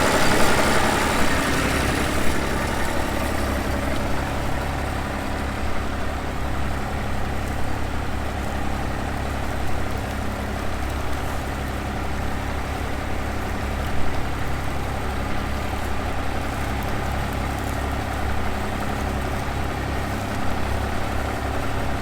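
Vehicle engine idling steadily, a low even hum, with a louder higher rushing noise over the first two seconds that dies away.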